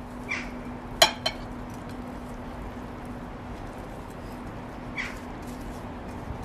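A black serving bowl knocks twice against the rim of a glass mixing bowl about a second in, as raw minced meat is tipped and scraped into it. A steady low hum runs underneath, with two short high chirps, one near the start and one about five seconds in.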